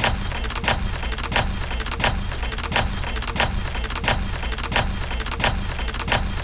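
Music with a steady beat, about three hits every two seconds, over a low bass line.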